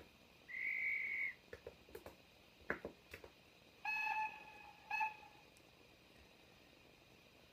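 ESU digital sound decoder in a Hornby OO-gauge GWR Hall-class steam locomotive model, playing its steam sound effects through the model's small speaker: a short high whistle about half a second in, a few clicks and clanks, then a lower chord-like whistle blown twice around four and five seconds in.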